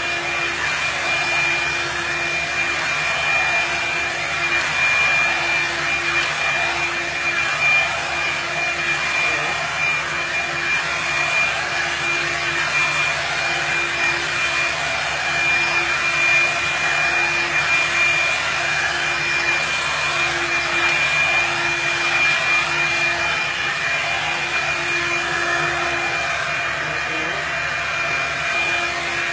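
Revlon blow dryer brush running steadily: a constant rush of air from its fan with a thin, steady high whine.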